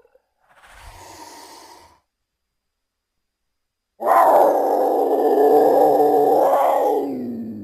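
Big-cat vocal sound effects: a soft breathy huff about half a second in, a gap of silence, then from about four seconds a loud, long growl that drops in pitch and fades near the end.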